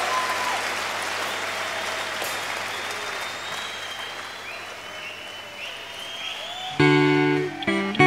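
Audience applause slowly dying away. About seven seconds in, an acoustic guitar comes in loudly with strummed chords, opening a song.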